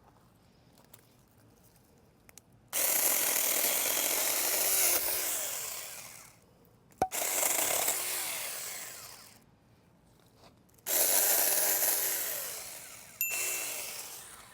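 Saker mini battery-powered electric chainsaw cutting through a tree branch in four short runs, each starting abruptly and fading away as the cut ends and the motor winds down. A sharp click sounds as the second run starts.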